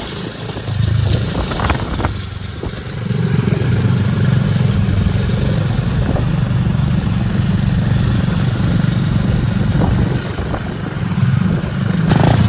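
Motorcycle engine running steadily under way, the note dropping briefly a few times as the throttle is eased.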